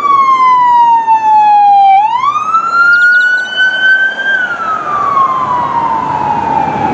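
Police siren wailing. Its pitch falls slowly, sweeps back up about two seconds in, and then falls slowly through the second half.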